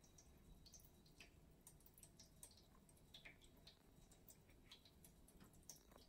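Faint, irregular plinks and drips of water from a stainless steel cat drinking fountain, its thin streams falling into the bowl.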